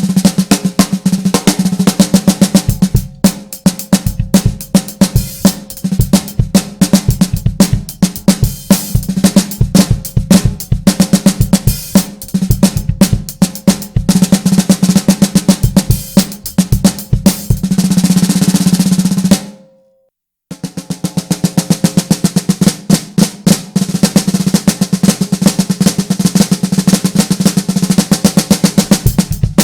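A 6x14 steel-shell snare drum played solo in rapid strokes and rolls. About two-thirds of the way through it builds to a sustained roll that cuts off abruptly, and after about a second of silence the playing resumes.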